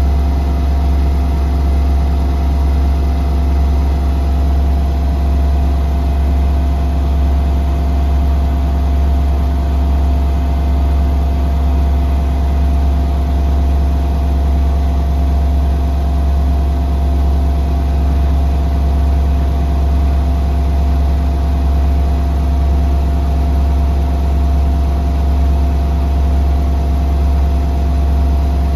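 Gorenje WNEI front-loading washing machine spinning steadily and smoothly at 1400 rpm: a loud, even deep hum with a fainter steady whine above it.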